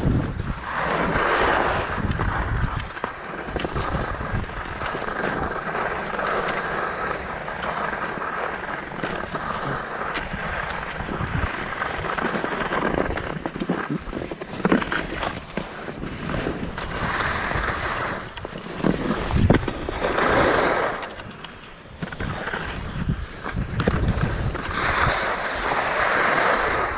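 Skis scraping and hissing over groomed snow, swelling louder several times as the skier turns.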